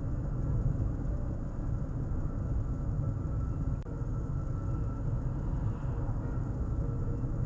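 Steady low rumble of a car on the move, with one sharp click about halfway through.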